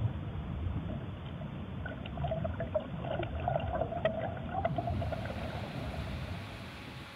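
Water trickling and bubbling with scattered small clicks, over a low rumble. After about four and a half seconds it gives way to a steady hiss of room noise.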